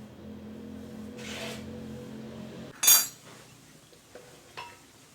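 A single sharp metallic clank about three seconds in, like a metal part set down or knocked on a hard surface, followed by two lighter clinks. Before it a steady low hum runs and stops just before the clank.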